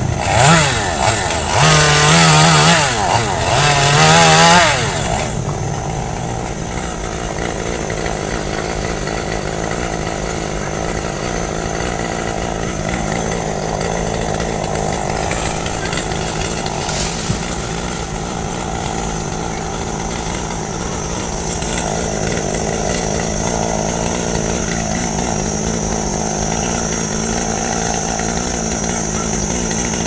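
Chainsaw engine running. It is loud and revving with a wavering pitch for the first five seconds or so, then runs at a steady, lower level.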